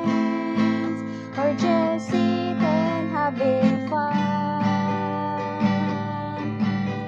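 A woman singing to her own strummed acoustic guitar. A little past halfway she holds one long note while the strumming carries on.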